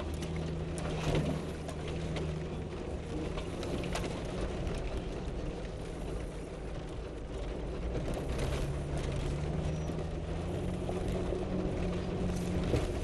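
Four-wheel-drive vehicle's engine heard from inside the cab, running steadily at low speed on a rocky dirt trail. The engine note eases off in the middle and picks up again about two-thirds of the way through, with scattered knocks and rattles from the rough ground.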